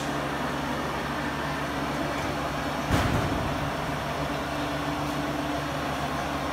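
AMF Glen 340 dough mixer running with a steady mechanical hum as its stainless bowl lowers from under the guard. A single knock sounds about three seconds in.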